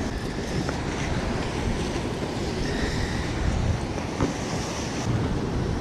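Steady wind noise on the microphone over surf washing against jetty rocks, with a couple of faint knocks.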